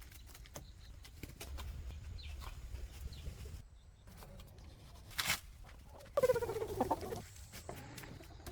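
A chicken gives one loud call, about a second long and falling in pitch, a little after a sharp knock; light taps and clicks come and go around it.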